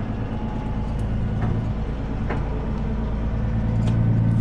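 Kenworth W900 semi truck's diesel engine running under load as the truck pulls a loaded trailer slowly through a turn; its steady hum gets louder near the end. A few light clicks are scattered through it.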